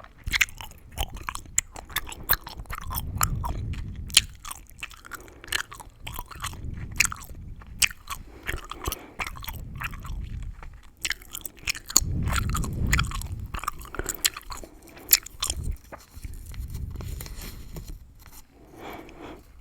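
Close-miked gum chewing: wet mouth smacks with many sharp crackles and snaps from the gum, coming in quick irregular clusters.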